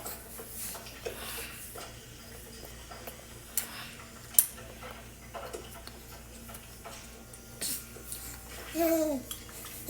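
Metal spoon clinking against a baby-food bowl during spoon-feeding, two sharp clicks about halfway through and a few softer ticks. A baby's short vocalisation, falling in pitch, near the end.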